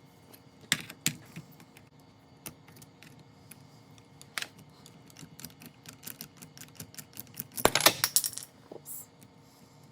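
Small metal clicks and taps as a screw is worked out of a small nitro RC engine with a hand tool, with a quick clatter of loud clicks nearly eight seconds in.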